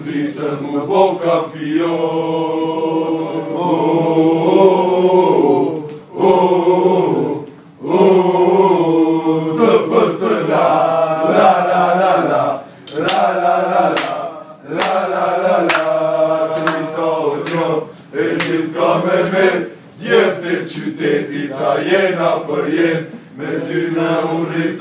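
A group of men singing an Albanian football supporters' chant together, unaccompanied and loud, in phrases of a few seconds with short breaks between them. Occasional sharp percussive hits sound over the singing.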